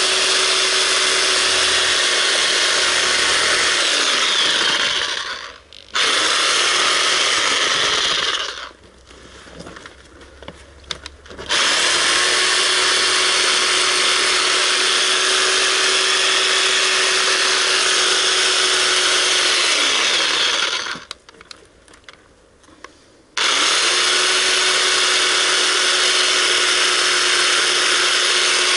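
Corded reciprocating saw running and cutting into a bird's head in four runs of several seconds. Between runs it stops for pauses of one and a half to three seconds, and twice the motor hum falls away as it winds down.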